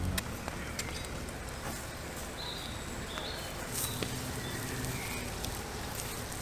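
Outdoor background with scattered faint clicks and a few short, high chirps.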